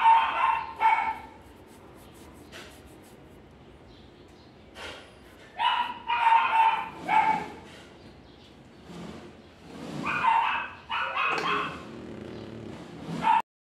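Dog yipping and barking in three bursts of high-pitched yelps, a few seconds apart.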